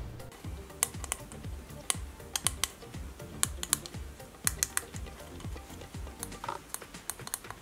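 Background music with a soft low beat about twice a second and sharp, crisp clicks laid over it.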